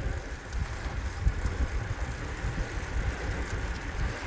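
Wind rumbling on the microphone of a camera carried on a moving road bicycle, a steady, fluttering low rumble with faint road noise.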